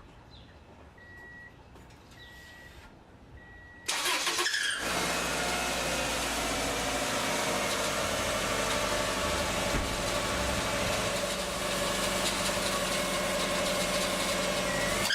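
Three short high beeps, then a car engine cranks briefly and starts about four seconds in, running steadily with a whining tone over it. This is the start-up noise that the owner also hears when the AC compressor engages.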